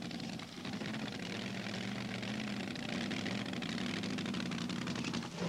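Engine of a mini-class pulling tractor running steadily at idle.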